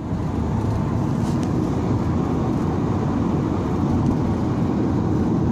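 Steady road noise inside the cabin of a moving car: a low, even rumble of tyres and engine at cruising speed.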